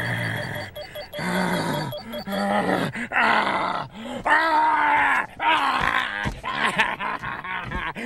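A man making exaggerated, wordless comic vocal noises: several drawn-out, wavering cries that slide up and down in pitch, with short breaks between them.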